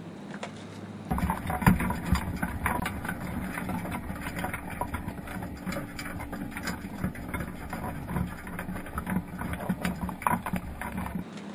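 Underwater clicking, crackling and scraping of Dungeness crabs clambering over a wire crab ring and its bait box, heard through a GoPro camera's waterproof housing. It cuts in about a second in and stops suddenly just before the end.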